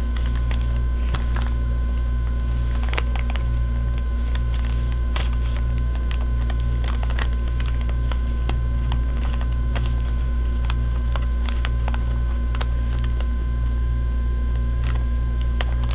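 Steady low electrical hum, the loudest thing throughout, with scattered soft clicks and crinkles of paper being folded and creased by hand on a cloth-covered table.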